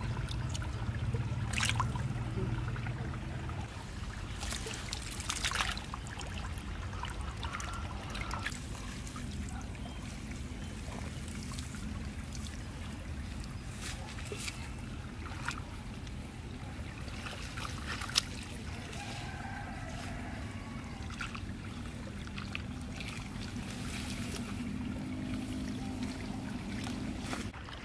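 Shallow muddy ditch water trickling and splashing, with crackling rustles of grass and weeds being handled, over a steady low rumble.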